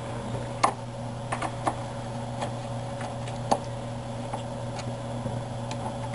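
Scattered light clicks and ticks as a hex screwdriver seats in and turns the mounting screws of a stepper motor on a wooden 3D-printer frame, over a steady low hum.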